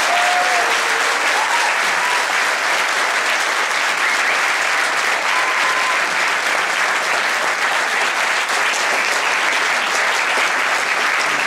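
Audience applauding steadily and at length, with a few faint voices calling out over the clapping.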